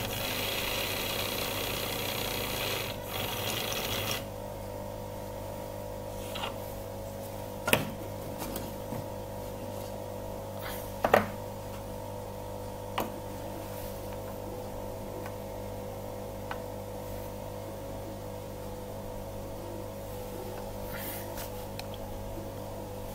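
Small motorised restoration rig for Bosch piezo valve pins, whirring steadily and stopping about four seconds in. Then a steady hum remains, with a few sharp clicks and knocks as the metal parts are handled, the loudest about eleven seconds in.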